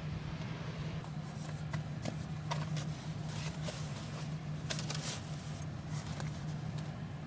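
Scattered light clicks and rustles over a steady low hum.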